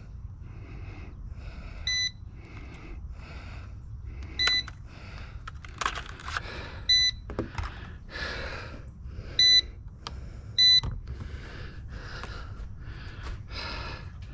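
A short electronic beep repeating about every two and a half seconds. Under it a soft, regular rustling pulses about twice a second.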